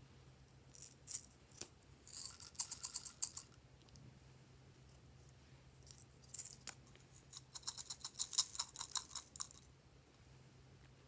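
Sprinkles rattling in small plastic pineapple-shaped containers as they are shaken out over a bowl of slime. The rattling comes in two bursts of rapid clicking, about two seconds in and again about seven and a half seconds in, with a few single clicks before the first burst.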